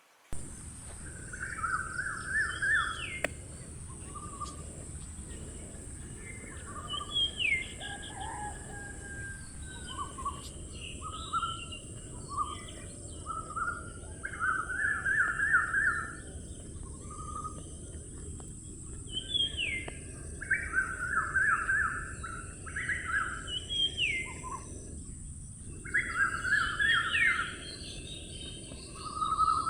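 Songbird singing: short phrases of quick, rapid notes, often with a sharp rising whistle, repeated every few seconds, over a steady high-pitched hiss.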